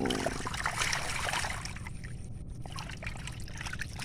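Water splashing and trickling around a bamboo raft on the reservoir, in irregular bursts that are busiest in the first two seconds, over a steady low rumble.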